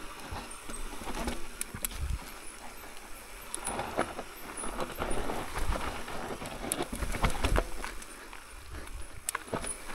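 Mountain bike riding down a rough trail: tyres running over dirt and rock, with irregular sharp knocks and rattles from the bike over roots and rocks.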